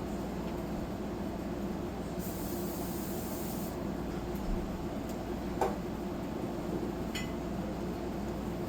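Sanitaire S663 upright vacuum cleaner running steadily over carpet. A brief high hiss comes in about two seconds in and lasts a second and a half, and a couple of light ticks follow later.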